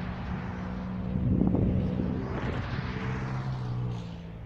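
A minivan driving past on the road, its tyre and engine noise swelling about a second and a half in, then fading. A steady low hum runs underneath.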